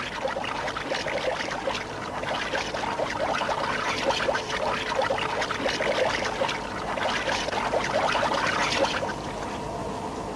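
Water pouring and splashing into a submarine escape trunk as it is flooded to equalise pressure with the sea outside. The rushing slackens to a quieter, steadier sound about nine seconds in.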